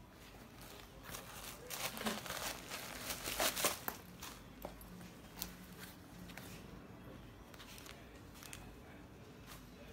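Rustling and crinkling from hands handling a leather handbag and its packaging. It is loudest and densest from about one and a half to four seconds in, then settles into a few light clicks and rustles.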